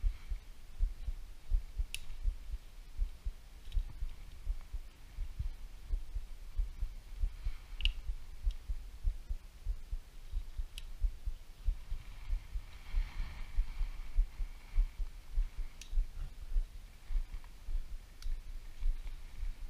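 A low, uneven thumping throughout, with a handful of sharp small clicks and a faint rustle from hands and tools working at an open motorcycle engine.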